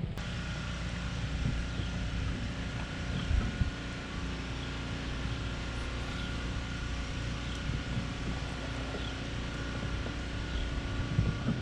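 Steady motor hum holding several constant tones over a low rumble, with faint short high chirps repeating about every second and a half.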